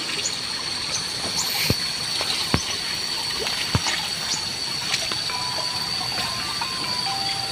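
Water trickling into a fish pond, with a few sharp clicks and a steady high-pitched whine over it.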